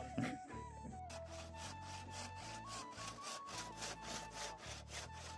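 Hand saw cutting through a wooden plank in quick, even back-and-forth strokes, about four to five a second, starting about a second in.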